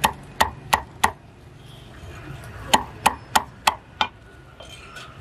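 Cleaver chopping crisp-skinned roast pork on a wooden chopping block: two runs of sharp chops, about three a second, four strokes at the start and five more from a little before the three-second mark.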